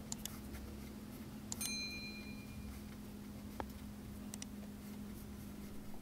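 Pencil drawing faintly on paper on a workbench, with scattered light ticks over a steady low hum. A short bell-like ping sounds about one and a half seconds in.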